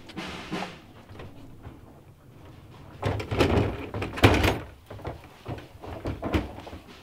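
A door and hard gear cases being handled during load-in: a scraping rush about three seconds in, then a sharp knock just after four seconds and a few lighter knocks.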